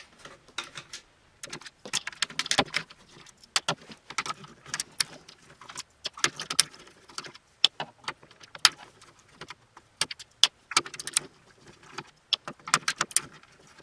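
Irregular small clicks and rattles of screws and plastic parts being handled as the housing of a Tomy Armatron toy robot arm is taken apart.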